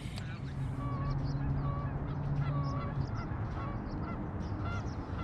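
Several geese honking repeatedly, short calls about two a second at slightly different pitches, with a low steady hum under the first few seconds.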